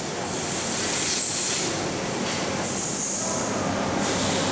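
Mitsubishi MH4050 horizontal machining center running under power: a steady mechanical hum with a high hiss that starts and stops several times.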